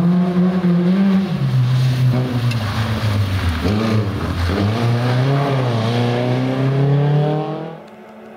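Škoda 130 rally car's rear-mounted four-cylinder engine revving hard through corners, its pitch falling and rising as it lifts off and pulls away again. It then climbs steadily under full acceleration before cutting off suddenly near the end.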